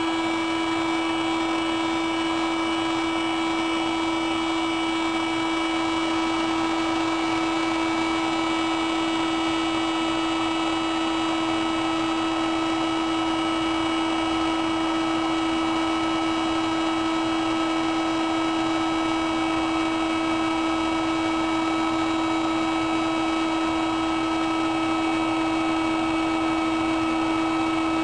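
Electric paint-stripper heat gun running steadily: its fan motor gives a constant hum with fainter higher whining tones over the rush of hot air. It is held over a laptop's GPU chip to reflow its solder.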